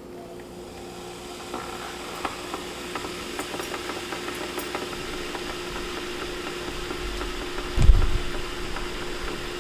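La Pavoni lever espresso machine hissing and sizzling with a steady hum underneath, the hiss slowly growing louder. A few light clicks, then one heavy thump about eight seconds in.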